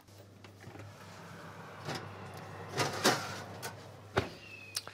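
Körting oven running with a steady low hum, while the oven door and a metal baking tray are handled: several clunks, the loudest about three seconds in, and a sharp click just after four seconds.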